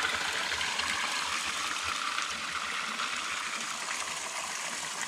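Water gushing steadily out of a pipe spout and splashing below, a continuous rush.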